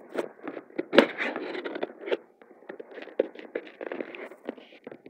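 A small knife cutting into a cardboard box: irregular scraping, scratching and crackling, with a sharp click about a second in, thinning out towards the end.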